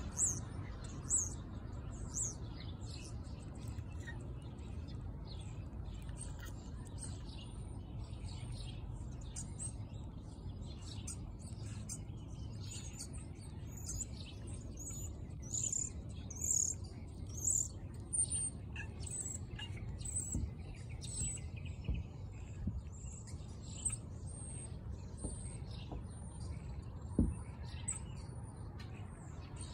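A flock of small birds chirping, many short high calls overlapping throughout and busiest midway, over a steady low rumble. A single sharp knock near the end.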